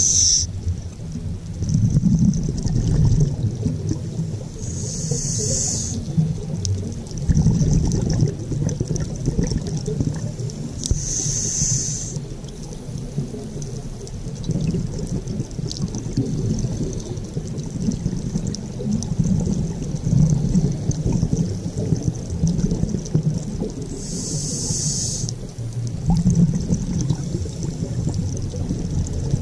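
Scuba diver breathing through a regulator underwater: a short hissing inhale four times, each followed about two seconds later by the low bubbling of exhaled air.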